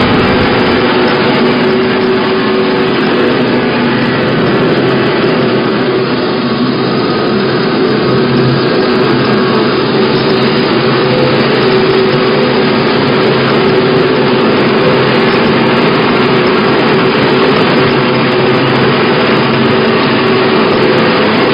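Wood sawdust making machine (log crusher) running steadily: a loud, even mechanical sound with a constant hum.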